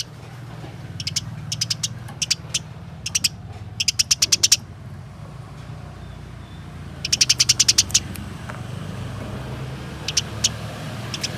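Eurasian tree sparrows chattering in quick runs of sharp, high chirps, several bursts of about a second each with a longer run near the middle: the agitated chatter of sparrows fighting. A steady low hum runs underneath.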